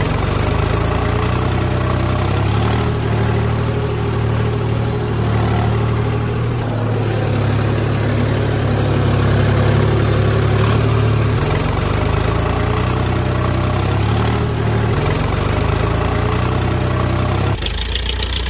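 Tractor diesel engine sound running steadily at a low, even beat, with small shifts in tone every few seconds. The engine sound is played over toy model tractors, which make no engine noise of their own.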